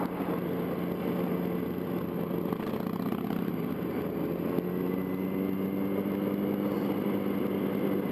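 Yamaha R1 inline-four engine running at low road speed with a steady note. About halfway through its pitch rises slightly as the throttle opens a little. Road and wind noise run underneath.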